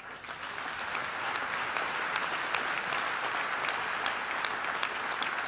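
Audience applauding, the clapping building up over the first second and then holding steady.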